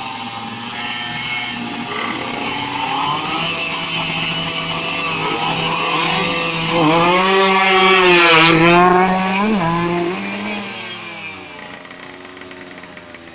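Drag-race motorcycle engine revving hard: its pitch swings up and back down in the middle, loudest about eight seconds in, then the sound fades away over the last few seconds.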